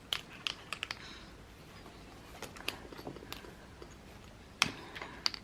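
Scattered faint clicks and light taps of art supplies being handled while a signature is painted in black, the sharpest two near the end.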